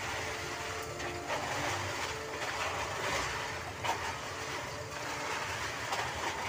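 Kerupuk crackers deep-frying in a large wok of hot oil: a steady sizzle and bubbling of the oil, with a few sharp clicks and scrapes of a long wire strainer stirring them against the wok.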